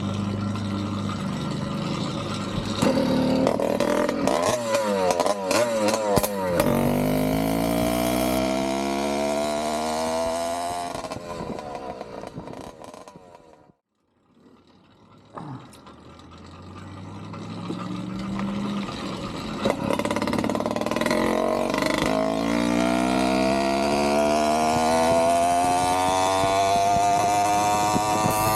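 Two-stroke Avenger 85 motorized-bicycle engine with an aftermarket Gomax expansion pipe running, then accelerating with its pitch climbing. It fades away about halfway through, comes back, and accelerates again with the pitch rising toward the end.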